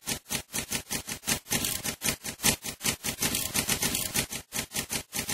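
Typing sound effect: a fast, uneven run of keystroke clicks, about five or six a second.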